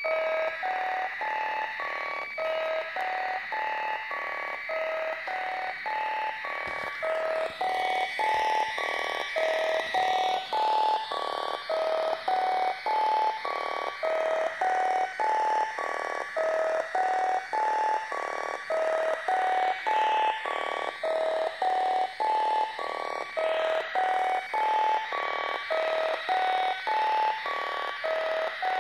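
A littleBits modular synth patch playing through its small speaker: a looping sequence of short pitched electronic blips, about two or three a second, stepping up and down in a repeating pattern over a steady bed of hiss. The hiss shifts in tone twice, a little over a quarter of the way in and again past two thirds.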